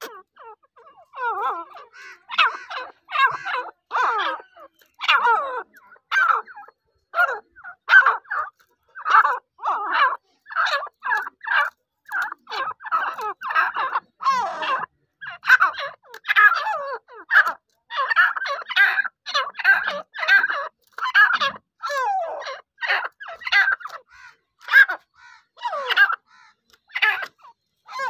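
Grey francolins calling: a continuous run of short, repeated calls, two or three a second, starting about a second in.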